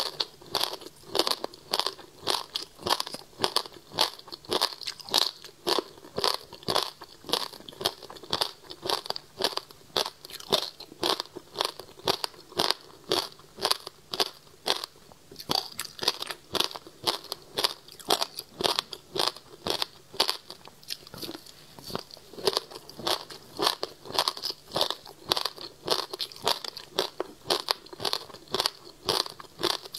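Chewing and biting frozen passion fruit pulp, ice set with the fruit's seeds, giving a run of sharp crunches in quick succession, picked up close by a clip-on microphone.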